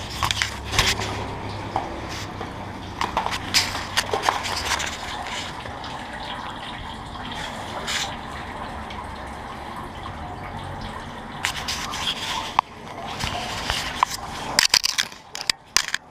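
Water dripping and splashing off a wet bicycle during a wash, with scattered clicks and knocks as the bike is handled, coming thicker in the last few seconds.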